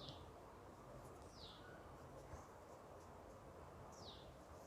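Near silence: faint room tone, with a few short, high chirps from a small bird, each a quick falling note, spaced irregularly a second or more apart.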